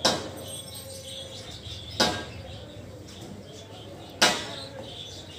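Three sharp swishes, about two seconds apart, each cutting in suddenly and fading within a fraction of a second: edit transition sound effects laid over a montage of clips. Faint high chirps sound in between.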